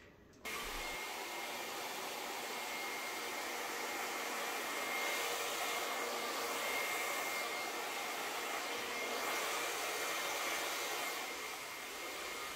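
Blow dryer switched on about half a second in and running steadily: a rush of air with a thin high whine.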